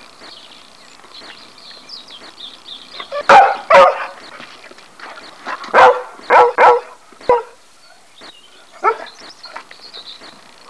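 A dog barking in short, loud barks: two together, then a run of four, then a single bark.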